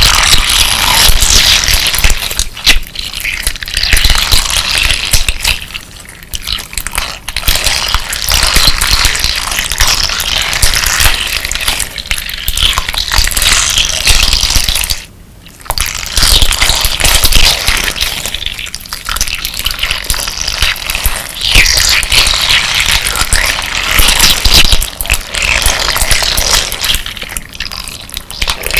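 Hands kneading and squishing a crunchy slime packed with crystal-glass decorative stones: wet squelching mixed with the grinding crackle of the glass pieces, with one short pause about halfway.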